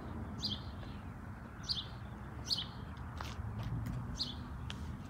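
A small bird chirping: short high chirps repeating about once a second.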